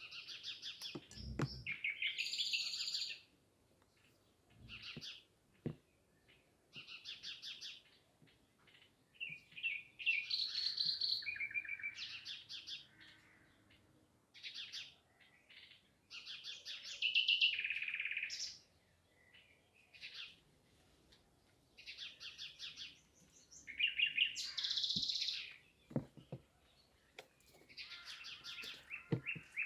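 Songbirds singing in phrases of quick, rapid chirping trills, one phrase after another with short pauses between them. There are a few soft knocks underneath.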